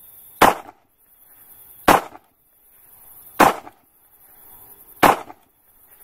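Edited end-card sound effects: a rising whoosh that swells into a sharp crack-like hit, repeated four times about a second and a half apart.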